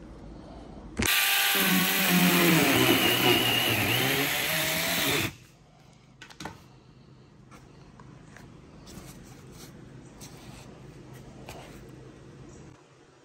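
A power tool's motor runs loudly for about four seconds, its pitch dipping and rising as it works, then stops abruptly. Faint rustling and crackling of cardboard being handled and torn follows.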